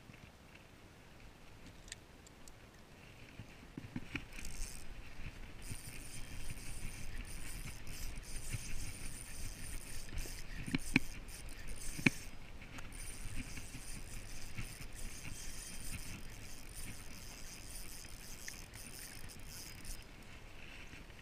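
Spinning reel being cranked, whirring steadily with short pauses as line is retrieved, with a few sharp clicks and knocks from handling the rod and reel; the loudest comes a little after halfway.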